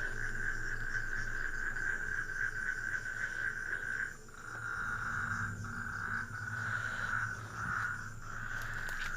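Steady, fast-pulsing insect trill, like a cricket chorus, that breaks off briefly several times in the second half.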